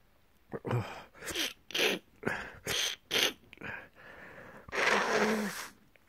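A person with a cold in a sneezing fit: a quick run of short, sharp bursts, then one longer, loud sneeze near the end.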